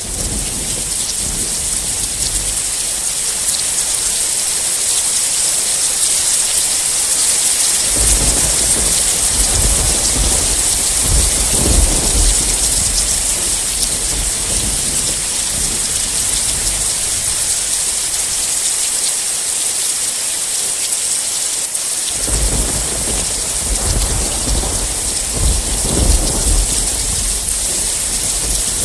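Heavy rain falling steadily, with thunder rumbling twice: a long roll from about 8 to 13 seconds in and another starting about 22 seconds in and running to the end.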